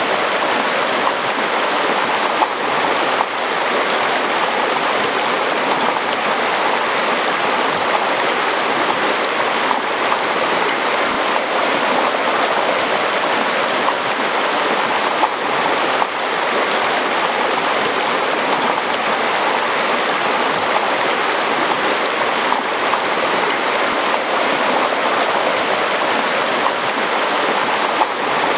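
Chalk Creek, a shallow rocky mountain stream, rushing steadily over stones.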